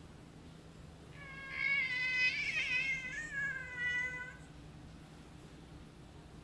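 A grey house cat giving one long, drawn-out meow of about three seconds that wavers in pitch, rising and falling before it trails off.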